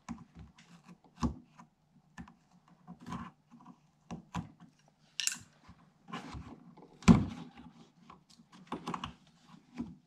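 Worn rubber RC plane tire being cut with a knife and pulled off its wheel rim: scattered light clicks, rubs and taps of the rubber and wheel being handled, a brief scrape about five seconds in and one louder knock about seven seconds in.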